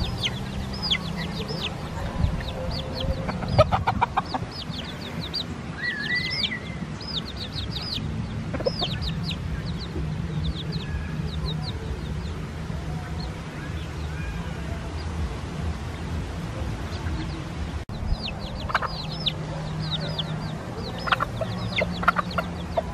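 Chickens in a pen: a steady run of high, falling peeps, a few each second, with occasional low clucks.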